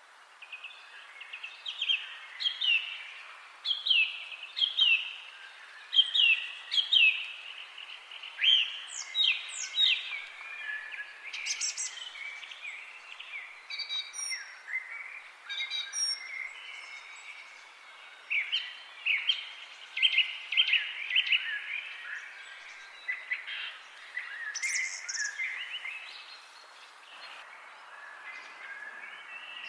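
Wild birds chirping in a forest chorus: many short, falling chirps come in quick runs, with a few thin, higher calls mixed in, over a steady soft hiss.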